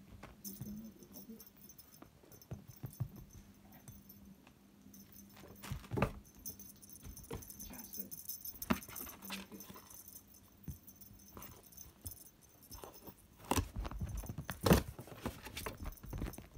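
A kitten playing with a cardboard box and a string toy on a fabric couch: scattered soft knocks, scrapes and cardboard rustles, with a cluster of louder knocks near the end.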